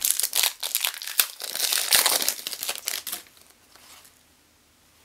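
Plastic wrapper of a Panini Donruss basketball card pack crinkling and tearing as it is ripped open by hand, in quick rustling crackles that stop a little past three seconds in.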